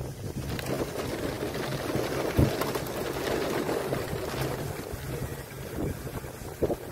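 Wind buffeting the microphone outdoors while a tornado is filmed: a ragged, steady rush with a low hum under it, and sharper gusts thumping on the microphone, the strongest about two and a half seconds in and another near the end.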